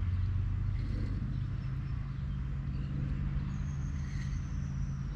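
A steady low mechanical hum, like a motor or engine running, holding level throughout.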